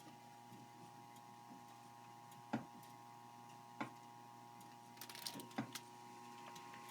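Quiet room tone with a steady electrical hum, broken by a few sharp, irregular clicks, two of them a little over a second apart and a short cluster near the end.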